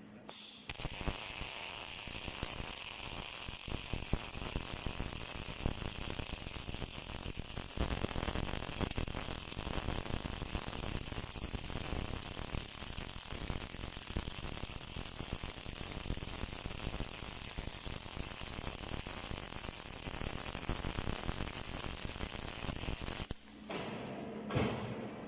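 Welding arc crackling and sizzling in one long, steady run on a light pole base weld; it starts about a second in and cuts off suddenly near the end as the arc is broken.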